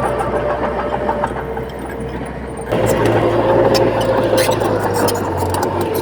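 Heavy diesel earthmoving machinery running steadily with a constant engine hum. The sound shifts abruptly a little under halfway through, and scattered short clicks follow.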